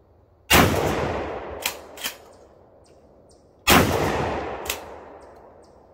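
Two pump-action shotgun shots about three seconds apart, each trailing off in a long rolling echo. The slide is racked back and forward between them with two sharp clacks, and a single clack follows the second shot.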